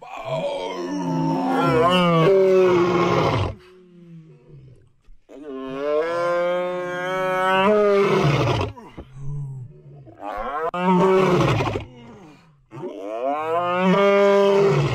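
A white lion roaring at close range: four long calls a second or two apart, each with a rich pitched tone that bends and drops at its end.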